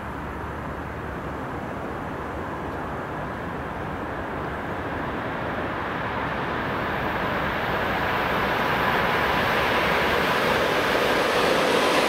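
EP2K DC electric passenger locomotive hauling a mail and baggage train, approaching at speed: its running and wheel-on-rail noise grows steadily louder. A faint steady whine comes in over the second half as the locomotive draws level.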